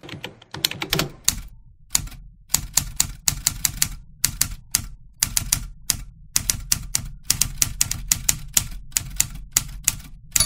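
Typewriter sound effect: keys clacking in an uneven run of single strikes with short pauses, keeping time with text being typed out letter by letter, over a faint low hum.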